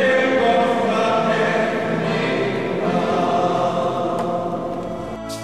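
A choir of voices singing a slow church chant in long held notes, cut off abruptly just before the end by a different piece of music.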